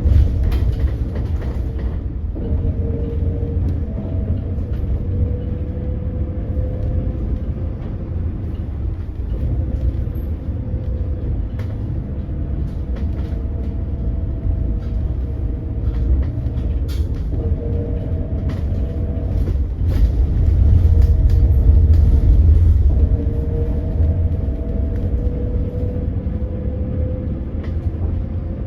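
Electric drive motor of a 2025 Hyundai Elec City hydrogen fuel-cell bus whining as the bus drives. Its pitch climbs slowly several times as the bus gathers speed, over a low rumble and scattered rattles of the cabin. The whine is the abnormal noise the motor is known for.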